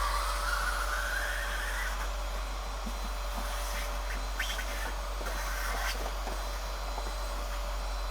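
An electric blower motor running steadily with a rushing hiss, its pitch rising over the first two seconds; a few light clicks about four and a half seconds in.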